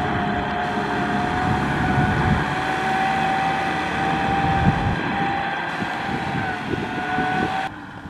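Kubota tractor's diesel engine working under load as it drags a loaded rice trailer through soft mud, with a steady high whine over the rough engine noise. The sound drops off abruptly near the end.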